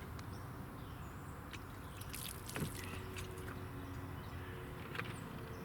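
Faint scattered drips and small ticks of soapy water running off a tire over a steady low background hum, as the tire is wetted to find a leak by its bubbling.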